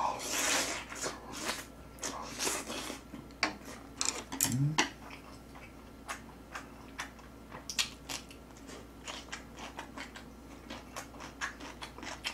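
A person chewing a big mouthful of food close to the microphone: a fuller crunch of the bite at the start, then many short crunchy clicks of chewing throughout, with a brief rising hum of the voice about four and a half seconds in.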